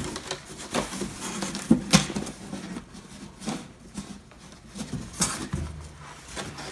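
Cardboard storage box being handled as its handhold flaps are pushed in and folded up: irregular creasing and scuffing of cardboard with a few sharp knocks.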